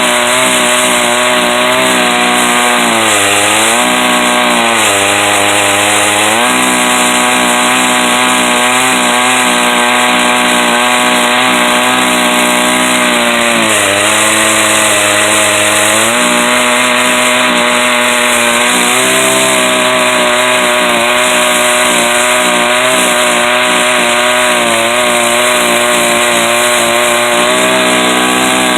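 Stihl 038 two-stroke chainsaw running at full throttle in a chainsaw mill, ripping along a log. The engine note dips twice for a couple of seconds each as the cut loads it down, then picks back up.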